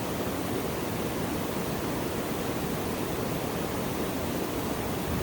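Waterfall running: a steady, even rush of falling water with no break or change.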